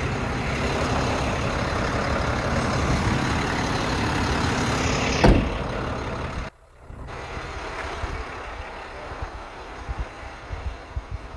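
Heavy truck engine running steadily at idle, with one sharp clack about five seconds in. Then the engine sound falls away abruptly and only a fainter, uneven rumble with scattered knocks remains.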